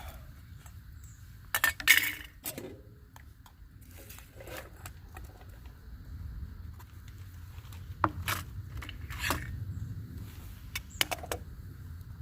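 Metal utensils and dishes clinking at a camp meal, in scattered sharp clinks with a short ring, the loudest cluster about two seconds in and a few more later.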